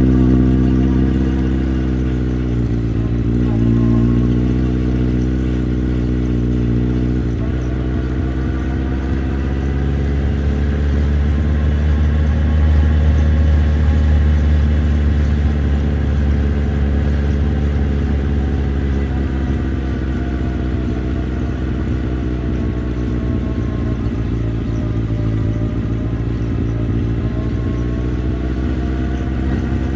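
Motorcycle engine running under way, its pitch rising and falling with the throttle, with gear changes a few seconds in and again about seven seconds in, then easing up and down at cruising pace.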